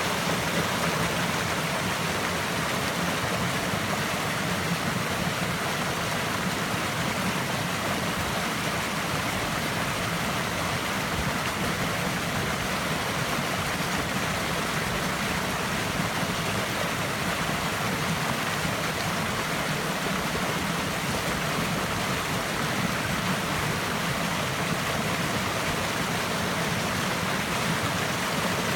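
Stream water flowing steadily over rocks, an even rushing without breaks.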